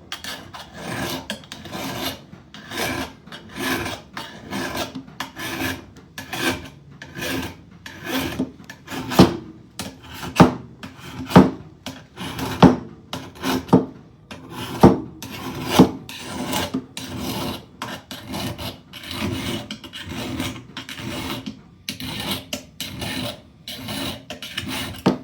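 Steel hand file rasping along the bevel of a dull lopper blade in repeated strokes, roughly two a second, sharpening the edge. A handful of strokes around the middle are sharper and louder.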